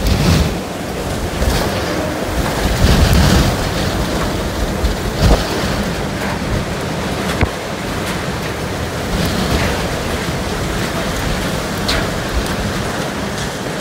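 Hurricane eyewall winds of around 130 mph, with driven rain: a loud, unbroken rush that swells in stronger gusts and buffets the microphone. A few sharp knocks of something being struck come through it.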